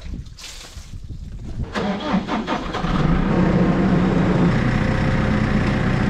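A machine's motor starts up about two seconds in, then settles into a steady, loud run.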